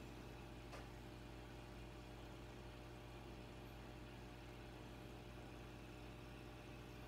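Faint, steady low hum of aquarium equipment running, with one faint click near the start.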